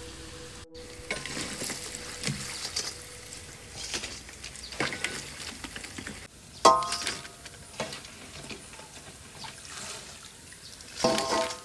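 Battered sugar apple pieces deep-frying in a wok of hot oil, the oil bubbling and crackling. A metal skimmer strikes the wok with a ringing clang about two-thirds through, and again near the end.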